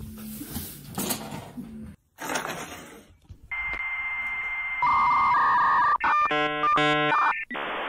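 Dial-up modem connection sound. About three and a half seconds in, a steady high answer tone comes in over hiss, followed by a run of beeps and harsh buzzing tones, then an even hiss near the end. Before it, a few soft knocks and rustles.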